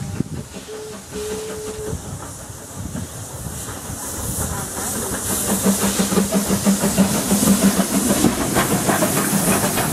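Stroudley A1X 'Terrier' 0-6-0T steam tank locomotive approaching and running past under steam, its steam hiss and rapid rhythmic running noise growing louder and loudest in the second half. A short steady tone sounds about a second in.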